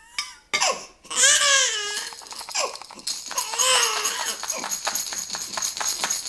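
Baby fussing: two short, high, wavering whiny cries, about a second in and again near four seconds. From about halfway on, a quick run of light clicks sounds behind them.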